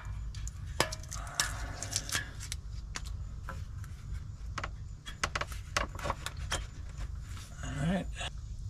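Scattered clicks and light knocks as a rubber radiator hose with a metal hose clamp is handled and worked onto the new radiator's outlet, over a low background rumble.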